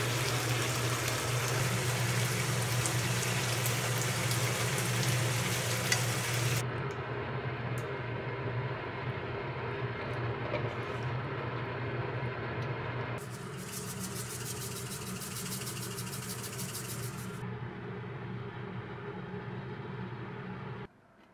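Spicy webfoot octopus and pork belly stir-fry sizzling and bubbling in a wok, over a steady low hum. The sound drops abruptly twice at cuts, getting quieter each time.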